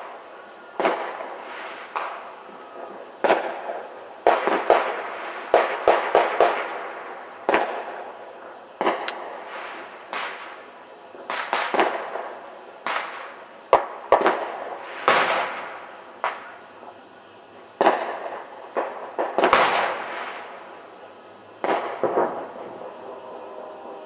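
Fireworks going off around a neighbourhood: irregular bangs and firecracker pops, some in quick strings, each trailing off in a long echo.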